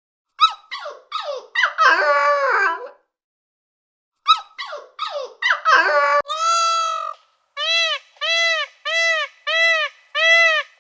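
Animal calls: clusters of high, falling, squeaky cries, then, after an abrupt change about six seconds in, one held call followed by six short repeated calls at an even pace.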